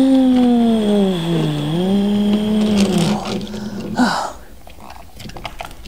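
A woman's voice making a humming engine noise for a toy submarine setting off. It lasts about three seconds, dipping in pitch midway and rising back. A short vocal sound follows about a second later.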